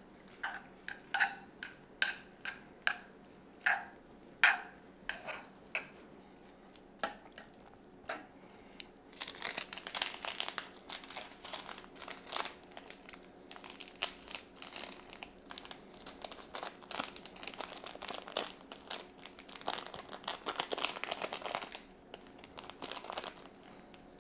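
Chopsticks tapping and scraping against a frying pan in a string of sharp, ringing taps while noodles are stirred. From about nine seconds in, a small plastic seasoning packet crinkles steadily for about twelve seconds as it is torn open and shaken out.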